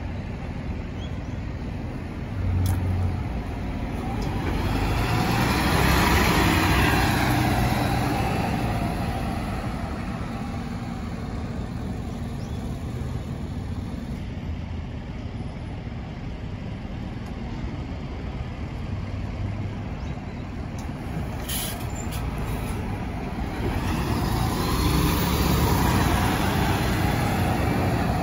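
City buses pulling away from a bus stop. The engine and tyre noise swells as one bus passes about five seconds in and then fades, and a second bus pulls away near the end. A short air-brake hiss comes about three quarters of the way through.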